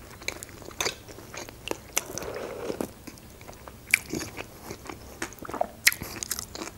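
Close-miked eating sounds as spoonfuls of lentil soup are taken: wet mouth clicks and chewing, with a short sip about two seconds in and a few sharper clicks near four and six seconds.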